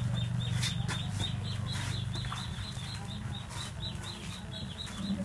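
Short high chirps repeating at an even pace in the background, over a low steady hum that fades out about halfway through. A few brief rustling noises come through.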